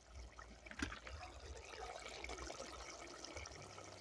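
Faint, even bubbling of a pot of saltfish and mackerel gravy simmering over a wood fire, with one small click about a second in.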